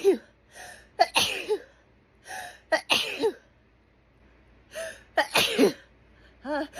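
A woman sneezing repeatedly in a hay fever sneezing fit: about four sharp sneezes, each after a quick in-breath, with a lull of about a second midway.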